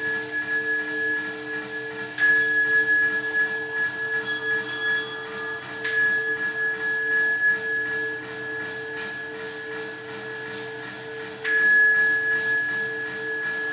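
A small high-pitched bell, struck three times and left to ring, each note fading slowly, over a steady, gently pulsing low drone.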